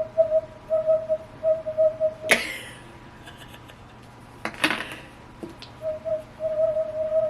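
A fidget toy giving off a pulsing whistle-like tone, about two pulses a second. About two seconds in, a sharp snap cuts the tone off; a second snap follows a couple of seconds later, and then the tone comes back.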